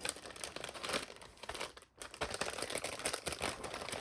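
Packaging crinkling and rustling as a bundle of trims and fibres is worked out of its bag, a dense run of fine crackles with a brief pause about halfway through.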